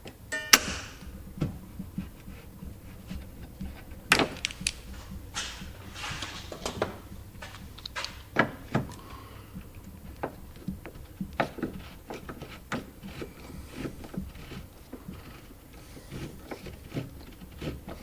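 Irregular clicks and knocks of a hand wrench working at a stuck, plastic-coated tail-light nut on a Jeep Grand Cherokee, with a short rapid run of clicks right at the start; the nut is stripping instead of coming loose.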